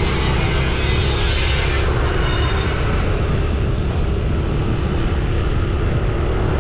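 Motorbike riding along a road: the engine runs steadily under a loud rush of wind and road noise on the microphone, the hiss easing a little about two seconds in.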